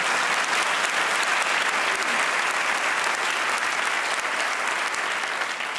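Large theatre audience applauding steadily, easing off slightly near the end.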